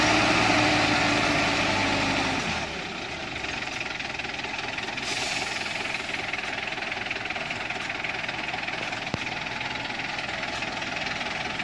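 Turbo diesel engine of a loaded truck working in deep mud, running steadily and loud, then dropping back about two and a half seconds in to a quieter, less even running sound.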